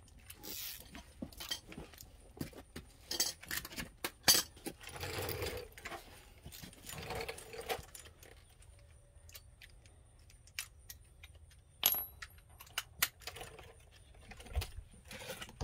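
Hand tools clinking and clicking on metal in an irregular series of sharp clinks, with a few brief rattling stretches, as a Loctite-coated caliper bracket bolt on a Ford F-350's rear brake is worked loose.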